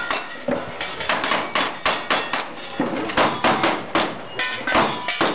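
Rapid gunfire from two shooters firing side by side, roughly three to four shots a second, mixed with the brief metallic pings of bullets hitting steel plate targets.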